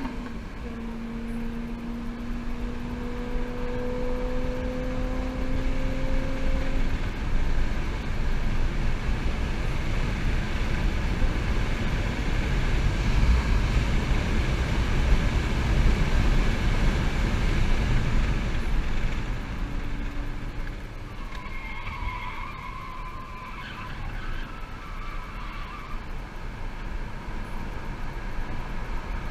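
2011 Chevy Volt heard from inside the cabin at track speed: steady road and wind noise, with a rising whine from the electric drive motor as it accelerates over the first several seconds. Tires squeal briefly in a corner about two-thirds of the way through.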